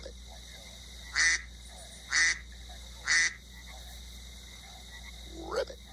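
Duck quacking three times, about a second apart, followed near the end by a short call that rises in pitch.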